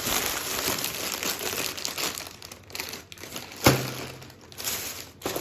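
Plastic shopping bag and crisp packets crinkling as groceries are handled and unpacked, with one sharp knock a little past halfway as something is set down.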